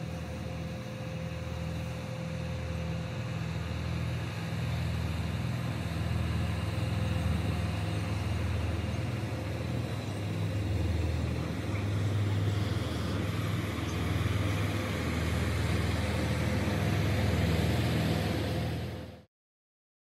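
A RiverCat catamaran ferry passing close, its engines running with a steady low drone that slowly grows louder as it nears. The sound cuts off abruptly shortly before the end.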